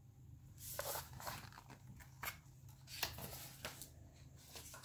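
A large hardcover picture book being handled and its pages turned: irregular paper rustling and sliding, with a few short sharp taps and rubs.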